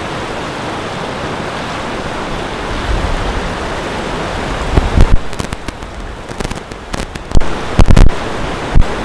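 Steady rush of water pouring over a river weir cascade. In the second half come several sudden loud low thumps, twice in close succession near the end.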